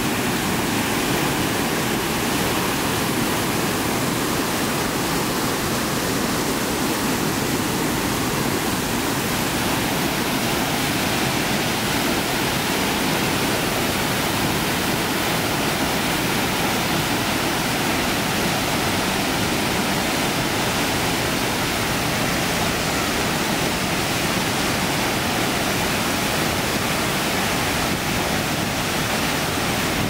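Chagrin Falls waterfall in heavy, muddy flow, pouring over the rock ledge into a churning pool: a steady, unbroken rush of water.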